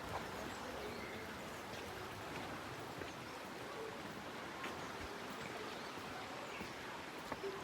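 The River Aare rushing through its narrow rock gorge: a steady, even noise of flowing water, with a few faint clicks.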